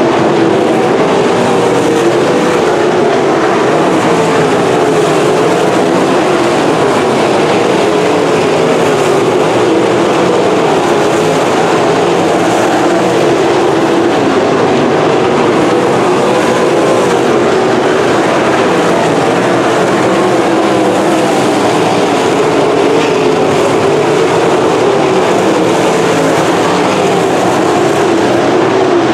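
A field of winged sprint cars racing, their V8 engines running loud and continuous. Several engines overlap, their pitch wavering up and down as the cars lap the track.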